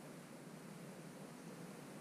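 Faint, steady background noise with no distinct sounds in it.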